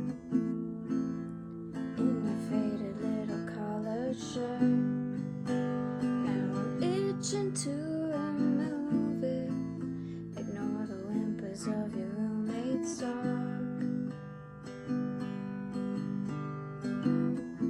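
Acoustic guitar strummed in a steady chord pattern, with a voice singing over it through the middle stretch.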